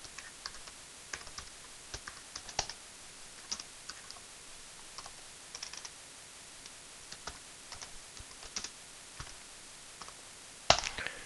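Typing on a computer keyboard: irregular, fairly quiet key clicks, with a louder pair of clacks near the end.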